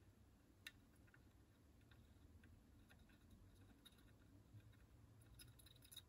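Near silence, with faint scattered clicks and ticks of wires, tools and the circuit board being handled during soldering, and a quick run of clicks near the end.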